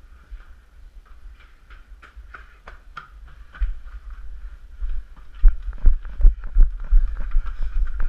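Footsteps on stone paving heard through a head-mounted action camera: a few scattered steps at first, then about halfway through a steady run of heavy thumps, about three a second, as the wearer breaks into a run.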